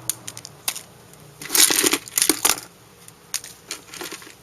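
Small plastic toy figures and loose pieces clicking and clattering as a hand rummages through them, with a louder rattling scrape about a second and a half in that lasts about a second.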